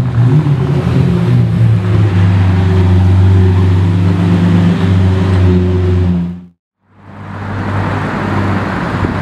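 Lamborghini Murciélago roadster's V12 engine running at steady low revs as the car drives off. It cuts off suddenly about six and a half seconds in, and after a moment of silence steady street traffic noise follows.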